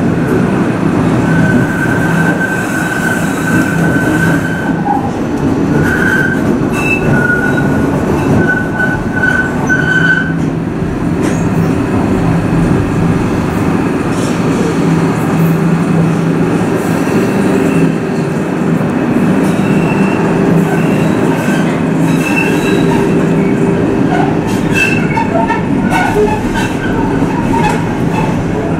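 Docklands Light Railway train heard from inside the car while it runs along the elevated track: a steady rumble and motor hum. Over it comes a high, thin wheel squeal, held from about a second in to about ten seconds in, then shorter squeals near the end.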